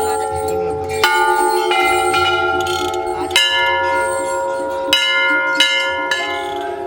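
Hindu temple bells, hung brass bells rung by hand, struck about six times at uneven intervals. Each strike rings on and overlaps the next, and the pitch differs from strike to strike as different bells are rung.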